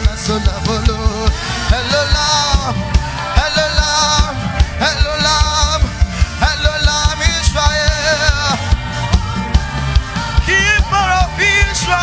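Live worship music: a man sings wavering, ornamented lines into a microphone over a band with a fast, steady drum beat.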